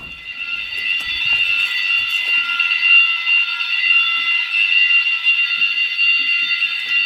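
Fire alarm sounder going off during a test activation of the system: a loud, steady, shrill alarm tone made of several high pitches. It grows louder over the first couple of seconds, then holds steady and cuts off suddenly at the very end.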